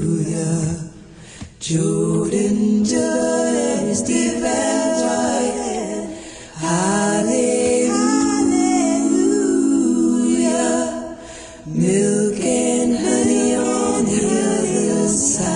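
Unaccompanied singing, in sung phrases with short breaks between them.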